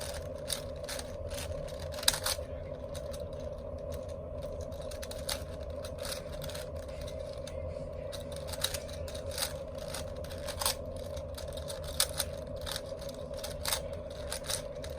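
Plastic 4x4 Rubik's cube being turned by hand, its layers clicking and clacking at irregular intervals, over a steady background hum.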